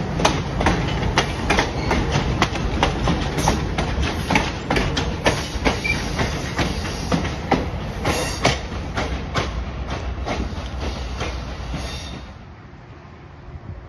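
Passenger train cars of the North Shore Scenic Railroad, including a green Northern Pacific Vista-Dome coach, rolling past with a steady rumble and a run of wheel clicks over the rail joints. The sound drops away suddenly about twelve seconds in.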